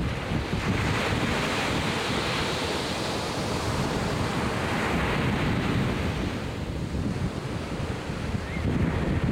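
Atlantic Ocean surf breaking and washing up the beach in swells of hiss, with wind buffeting the microphone as a gusty low rumble.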